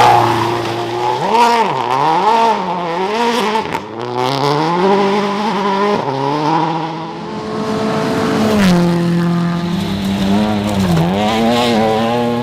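Rally car engine revving hard, its pitch swinging quickly up and down over the first few seconds, then climbing through the revs with sudden drops at gear changes, about four, six and eight and a half seconds in.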